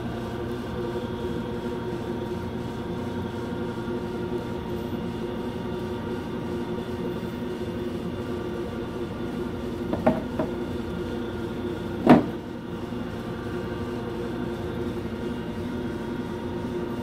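Motor of an electric noodle press running with a steady hum as it extrudes fresh 100% buckwheat noodles through its die. A light knock comes about ten seconds in and a sharper, louder knock two seconds later.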